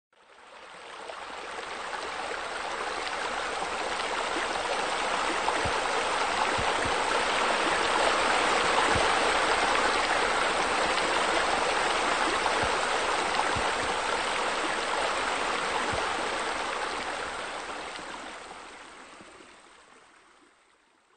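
Steady splashing, rushing water of pool water features (spa spillway and waterfall), fading in over the first couple of seconds and fading out over the last few.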